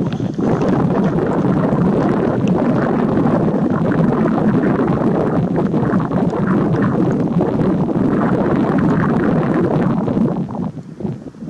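Wind buffeting the microphone: a loud, steady rush that eases off briefly near the end.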